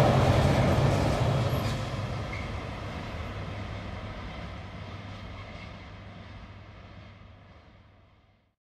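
Freight train of pocket wagons rolling away along the track, its rumble fading steadily and cutting off near the end.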